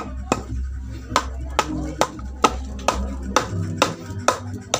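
Hammer striking wood in a steady rhythm, a little over two blows a second, as a wooden stool is hammered together. Background music plays underneath.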